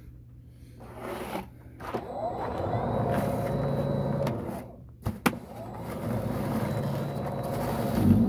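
Snapper XD 82-volt brushless snow broom's electric motor and impeller spinning up with a rising whine about two seconds in, then running steadily. It cuts out briefly near the middle with a sharp click, then runs again.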